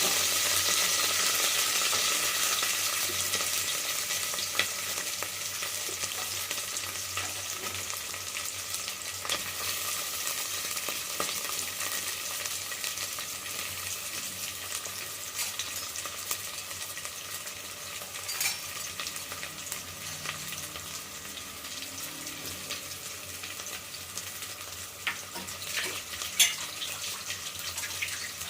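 Food frying in oil in a pan: a steady sizzle that slowly dies down, with occasional sharp clicks of a utensil against the pan as it is stirred.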